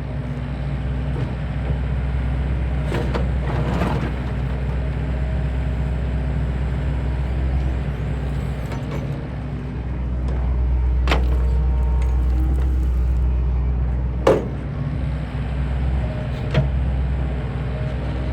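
An engine running steadily with a deep rumble, with a few sharp metallic knocks or clanks, the loudest about fourteen seconds in.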